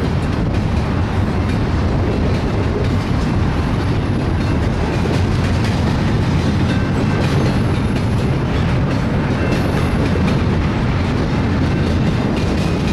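Double-stack intermodal train's well cars rolling past: a steady, loud rumble of steel wheels on the rails with frequent clicks over the rail joints, and a few faint, brief high-pitched whines.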